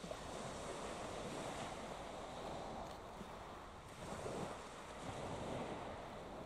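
Wind and waves at the shore: a steady rushing noise with no engine tone, swelling twice in the second half.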